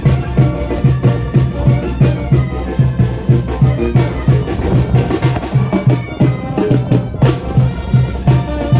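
Mexican banda (a regional brass band) playing, with a quick, even low beat of bass and drum under brass and wind parts.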